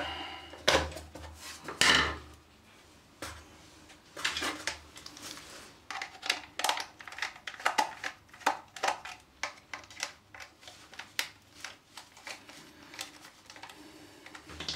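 Small screwdriver clicking and scraping in the screws of a plastic heater casing as the housing is handled: two louder knocks in the first couple of seconds, then a run of irregular small clicks.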